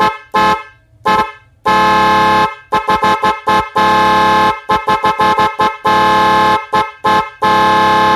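Dr. D. Fischer 12 V dual snail horns, with a 520 Hz and a 420 Hz trumpet sounding together as a two-tone blare. They are blown in a series of short toots and about four longer blasts of about a second each. Loud.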